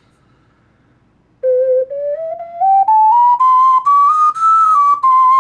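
A 3D-printed 12-hole alto ocarina plays a scale. After about a second and a half of quiet, separately tongued notes step up in pitch to the top of the range, then start back down near the end. Every note is in tune or needs only a little breath adjustment.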